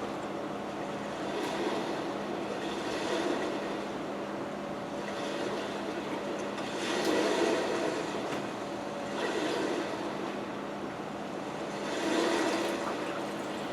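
Close-miked chewing and mouth sounds of someone eating barbecue ribs, swelling in soft bouts every couple of seconds.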